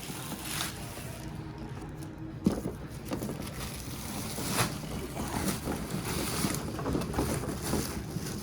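Tape being pulled off a display tower, with rustling and handling noise and a sharp knock about two and a half seconds in.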